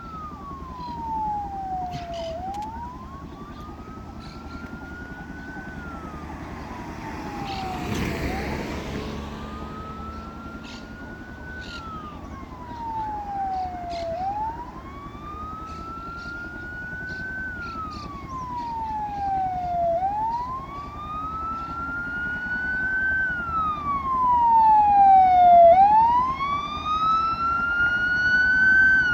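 Ambulance siren in a slow wail, rising and falling about every six seconds and growing louder as the ambulance approaches, with a brief rush of noise about eight seconds in.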